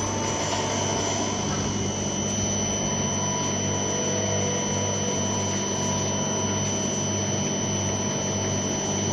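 CNC milling machine running steadily: a constant low mechanical hum with a thin high-pitched whine over it.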